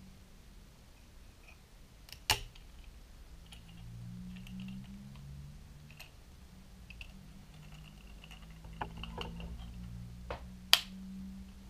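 Hands handling a plastic cordless LED work light: rubbing and handling noise with a few sharp plastic clicks, the two loudest about two seconds in and near the end.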